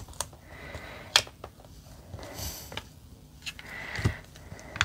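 Handling of plastic stamping supplies: clear stamps pressed back onto their plastic carrier sheet and a plastic ink pad case opened, giving soft rustling and several sharp clicks, the strongest about a second in and near the end.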